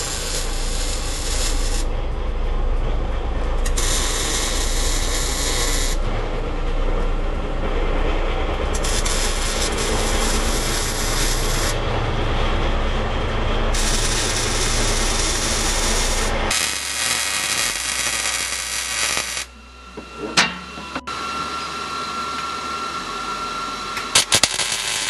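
MIG welder arc crackling steadily as steel roll cage tubing is welded, the arc stopping and starting between short runs. About two-thirds of the way through it gives way to a quieter steady hum with a few sharp clicks.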